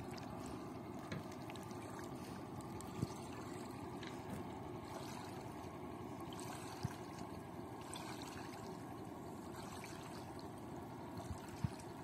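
Shallow river water swishing and trickling steadily as a long-handled hand net is drawn through it, with a few faint knocks.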